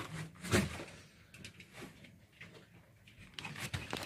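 Small metallic clicks and knocks of hands working the injector fuel-pipe fittings on a stopped diesel boat engine. There is one stronger clunk about half a second in, and a quick cluster of light clicks near the end.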